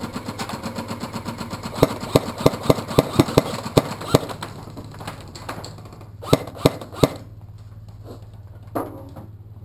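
Airsoft gunfire: a fast, even rattle of full-auto fire for about the first five seconds, with a string of about nine sharp, loud cracks in the middle, then three more cracks about six to seven seconds in.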